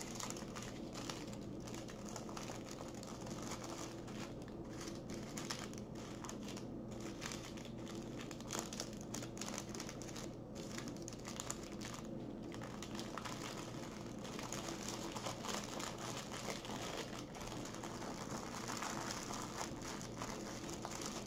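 Small clear plastic bags of diamond-painting drills crinkling and rustling as they are handled and set down on a table, with small clicks throughout, over a steady low hum.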